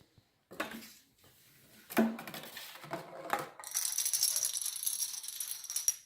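A few light knocks of small hard pieces, then a dense clattering run of rapid clicks lasting about two seconds that stops abruptly: a row of dominoes toppling in a chain.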